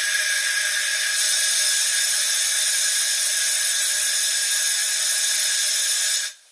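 Compressed air hissing steadily, with faint whistle tones, from a diesel switch locomotive's 6BL automatic brake valve during a brake application; it cuts off suddenly near the end. The equalizing reservoir is venting while brake pipe pressure does not drop, a fault in the automatic brake valve that cleaning out debris has not cured.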